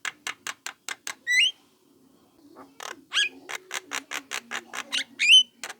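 Young Javan myna calling: quick runs of short harsh chattering notes, about five a second, broken by brief rising squeaky calls. The calls come in two bouts with a short pause between them.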